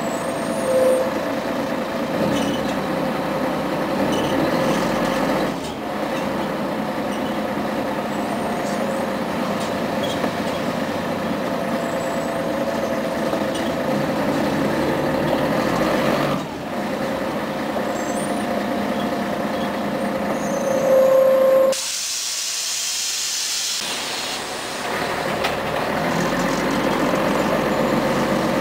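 Inside a 1996 Scania CN113ALB city bus moving slowly in traffic: the diesel engine and drivetrain run steadily with a faint whine. About three quarters of the way through, the bus's compressed-air system lets out a loud hiss of air for about two seconds.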